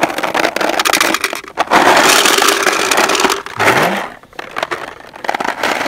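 Paintballs poured from a plastic tub into a paintball hopper, clattering against the hopper's plastic and against each other. The rattle is dense for about three and a half seconds, loudest just before it tails off, then thins to scattered clicks as the last balls settle.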